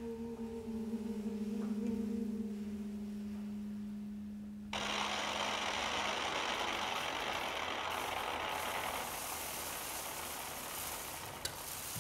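Experimental music-theatre soundscape. A held low hum with one overtone fades away, then about five seconds in a steady rushing noise, like electronic static, cuts in suddenly and continues.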